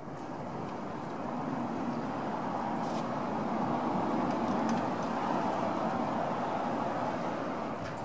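Road traffic noise: a vehicle's steady rumble that swells to a peak about halfway through and fades again.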